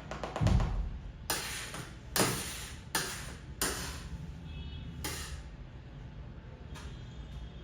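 Kitchen utensils and bowls knocking while a cake batter is prepared: a low thud, then about five sharp clattering knocks a second or so apart, one leaving a faint ring.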